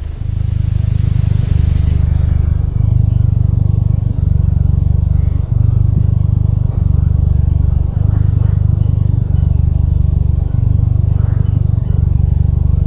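Domestic cat purring: a continuous low, buzzing rumble that shifts slightly with each in-breath and out-breath, about every one and a quarter seconds.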